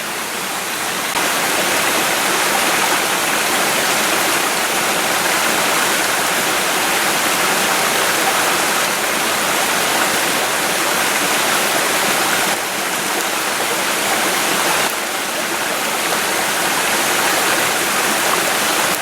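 Small mountain stream running over rocks: a steady rush of water that dips slightly for a couple of seconds past the middle.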